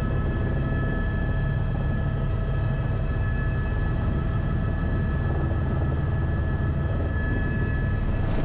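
Helicopter in flight heard from inside the cabin: a steady low rotor and engine drone with a constant high whine over it.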